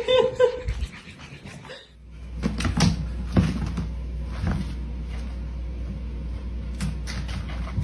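A dog's short vocal sound, then a steady low hum with a few scattered knocks and thumps.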